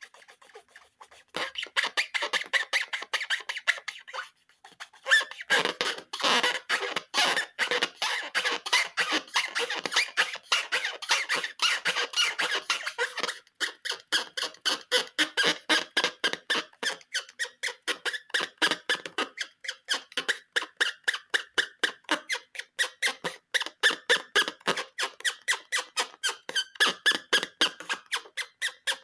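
Rubber balloons squeaking as they are rubbed and squeezed by hand, in a rapid train of short squeaks several a second, with brief pauses in the first few seconds.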